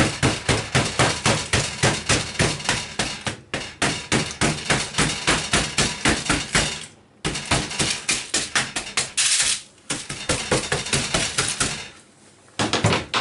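A hammer striking a hard, baked salt-and-egg-white crust on a baking tray, rapid blows several a second in runs broken by short pauses, cracking the crust open.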